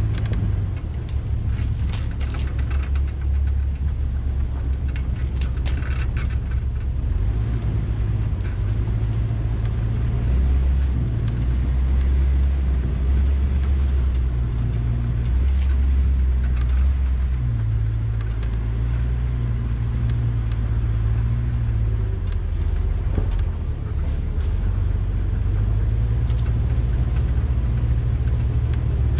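Off-road SUV engine running low and steady as the vehicle crawls over a rough dirt trail, its note rising and falling with the throttle. A few brief knocks and rattles come from the vehicle over the bumps, the loudest in the first few seconds and a couple more near the end.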